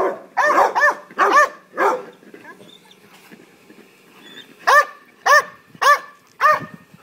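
Belgian Malinois barking for a ball in sharp, repeated barks: a quick run of about six in the first two seconds, a pause, then four more evenly spaced barks.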